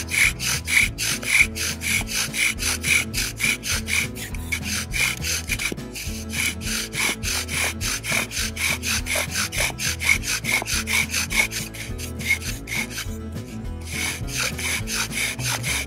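Bow drill at work: a yucca spindle spun by a shoelace bowstring grinds against a cedar fireboard in rapid, even rasping strokes, about three a second, pausing briefly near the end. This friction is building a coal in the wood dust.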